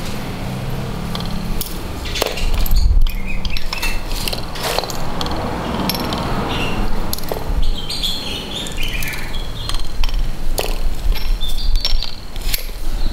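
Scattered metal clinks, taps and knocks of hand tools, a T-handle tool and a 14 mm spanner, working on the bare aluminium crankcase of a small two-stroke grass-trimmer engine.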